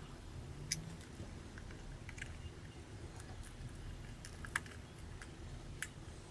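Scattered small sharp clicks and ticks of a plastic pry tool and tweezers working at the plastic casing of a Nikon Coolpix AW110 compact camera during disassembly, three of them louder than the rest.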